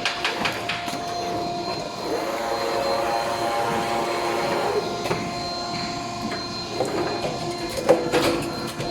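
Double-sided buckle machine for nailless plywood boxes running, with mechanical clicks and clacks over a steady whine. A cluster of louder clacks comes near the end.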